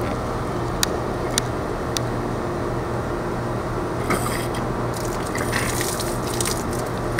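Water running through a service sink faucet and a garden hose on a brass Y fitting, a steady rush with a few light clicks in the first two seconds and short hissing spurts from about four seconds in.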